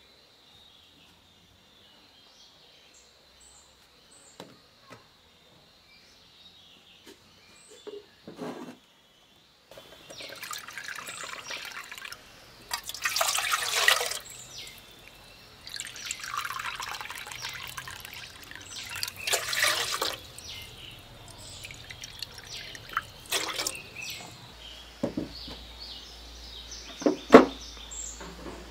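Water poured from a clay bowl into an aluminium pot in several separate pours, splashing into the water already there. The pouring starts after several quiet seconds with faint high chirps; near the end come scattered knocks of pots being handled.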